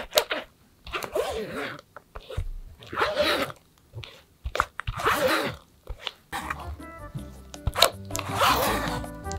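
Silicone spatula scraping and pressing thick cream cheese batter through a fine wire-mesh sieve in repeated strokes. Background music comes in about six seconds in.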